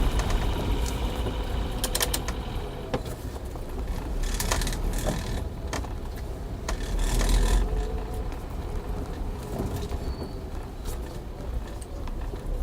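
Manual Toyota Avanza on the move: steady low engine and road rumble with a faint wavering whine over it and a few short rattles.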